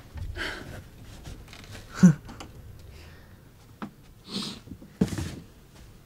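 Short breaths and sniffs with soft knocks and rustles; the loudest is a brief sharp sound about two seconds in.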